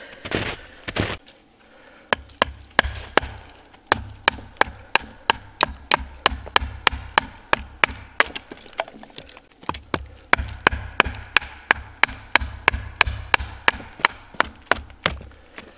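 A knife being batoned down through a small stick with a wooden baton to split kindling. It makes a steady run of sharp wooden knocks, about three a second.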